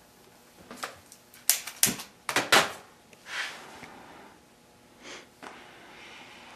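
Handheld trigger-start gas torch being lit: a run of sharp igniter clicks, a whoosh as the gas catches about three seconds in, then the flame hissing steadily and growing louder near the end.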